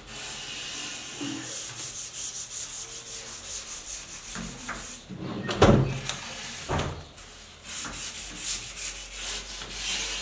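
Hand-sanding varnished wooden drawer fronts with a folded piece of sandpaper in quick back-and-forth strokes, smoothing the dried finish coat. Two louder knocks come a little past halfway.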